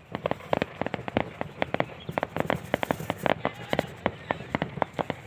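Firecrackers going off in a rapid, irregular string of sharp bangs, several a second.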